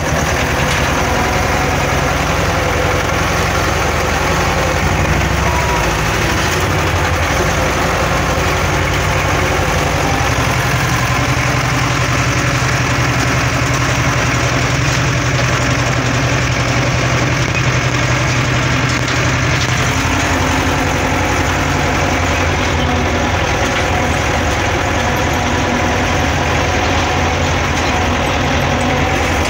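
Ursus C-330's two-cylinder diesel engine running steadily under load while pulling a loaded trailer uphill, heard from the driver's seat in the cab. Its note shifts about two-thirds of the way through.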